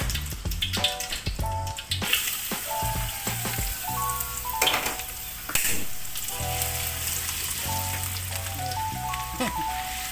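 Hot oil sizzling in a steel wok. About halfway through, chopped shallots drop into the oil and the sizzle gets louder, and near the end a metal ladle stirs them.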